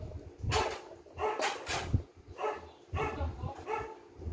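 A dog barking in the background, a string of short barks at roughly two a second.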